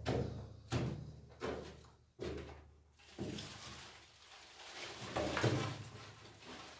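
Footsteps climbing stone steps inside a cave chamber, heavy thuds about every three-quarters of a second that echo and fade in the enclosed space. In the second half they give way to a longer, rougher rustling and scraping as the climber pushes out through the leafy branch cover at the entrance.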